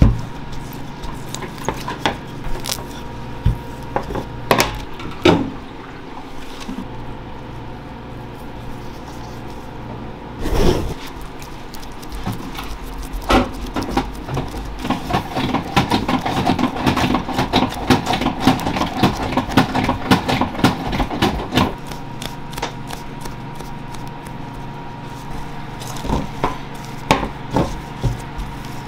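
Bagel dough being handled and pressed by gloved hands on a stainless steel worktable: scattered knocks and taps against the steel, with a dense run of quick taps in the middle. A wooden rolling pin knocks a few times near the end, over a steady hum.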